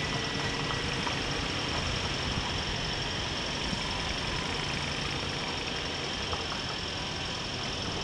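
Motorcycle engine running steadily while riding, under a steady rush of wind and road noise.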